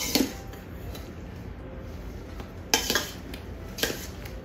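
Metal dough whisk scraping and clinking against a stainless steel mixing bowl as bread cubes are folded into a wet pineapple mixture, in three strokes: near the start, a little under three seconds in, and about four seconds in.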